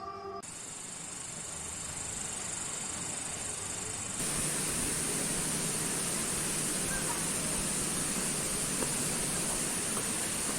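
Steady rain hiss with a high, continuous insect trill over it, the whole ambience stepping up louder about four seconds in.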